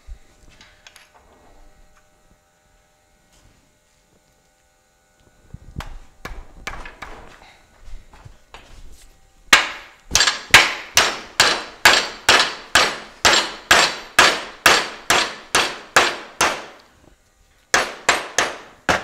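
Hammer blows on a metal fender-skirt mounting bracket, bending it to a 90-degree angle: a few lighter knocks, then a steady run of about eighteen sharp metallic strikes at roughly two and a half a second, and four more near the end.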